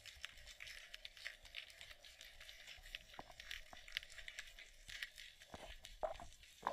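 Underwater crackling heard through a submerged action camera in its housing: a dense run of small, irregular clicks and pops, with a few louder knocks near the end.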